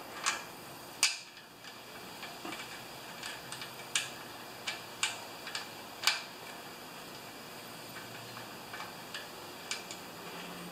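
Scattered small clicks and taps of metal parts being handled at the brush bracket of a generator's alternator end, the loudest about a second in.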